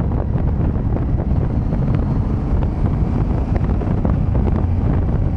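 Motorcycle engine running steadily under heavy wind rush on the microphone.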